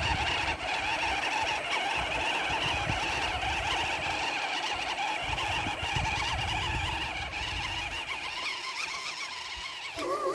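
Scale RC crawler's electric motor and gearbox whining steadily as the truck crawls up a dirt trail, easing off slightly near the end, with a low uneven rumble underneath.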